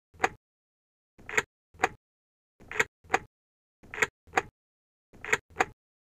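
Car key being put into an ignition lock again and again: sharp clicks in pairs about a third of a second apart, each pair repeating roughly every 1.3 seconds.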